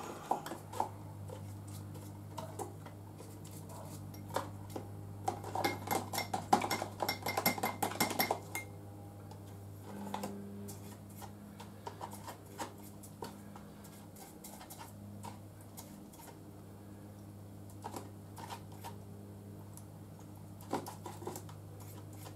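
Small metal motorcycle fork parts and tools clinking and rattling as they are handled on a workbench. There is a busy stretch of clatter about a quarter of the way in, then scattered single clicks, all over a steady low hum.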